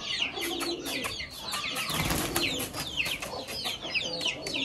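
A rooftop flock of birds with many rapid, high-pitched falling chirps, and some lower calls among them. There is a brief rushing noise about two seconds in.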